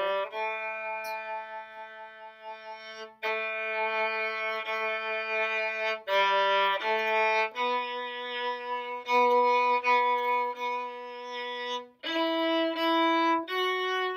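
Bowed string instrument of the violin family played at a slow practice tempo: long sustained single notes, each held from under a second to about four seconds, stepping higher near the end.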